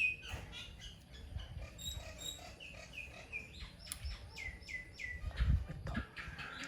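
An animal's high chirping calls: runs of short chirps, each falling in pitch, a few a second, in two bursts. A low bump comes about five and a half seconds in.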